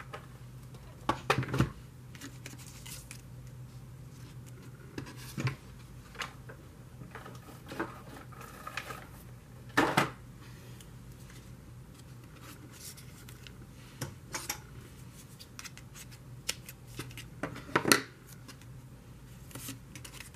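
Scissors snipping now and then, with the light rustle and taps of cardstock being handled, as small scrap pieces of adhesive foam are cut and pressed onto the back of a paper circle. The sharp sounds come at scattered moments a few seconds apart.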